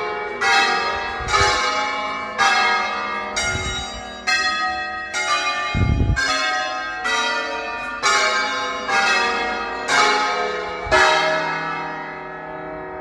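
Church bells of a ring of twelve in E-flat, the nine largest rung in sequence by a team of ringers: one strike after another about every half second to second. The last strike comes about eleven seconds in and its ringing fades away.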